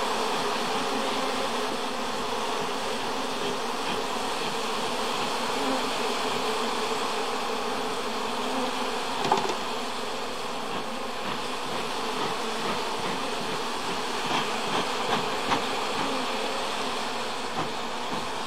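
Honeybee colony buzzing steadily over an open hive of exposed comb, with a few brief knocks about halfway and again near the end.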